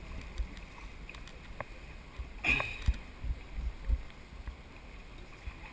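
Dragon boat paddles dipping and splashing through the water as the crew strokes, with low buffeting on the microphone. One louder sharp splash comes about two and a half seconds in.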